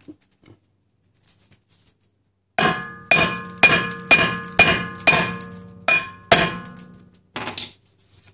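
About nine hammer blows, roughly two a second, on the rusted rear brake rotor of a 2003 Honda Accord. Each blow leaves the cast-iron disc ringing with a metallic clang. The rotor is being knocked loose from a hub where the mechanic thinks a ring of rust is holding it.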